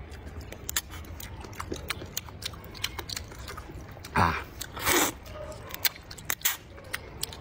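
Noodles being eaten: a steady run of wet chewing and mouth clicks, with two loud slurps about four and five seconds in and a smaller one shortly after.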